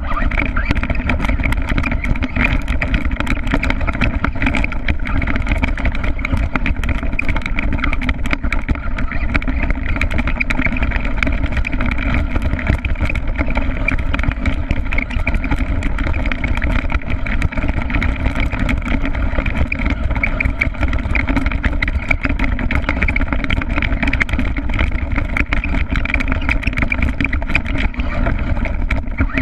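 Redcat Racing RC stadium truck driving, its motor and drivetrain heard at a steady level through the onboard GoPro's housing.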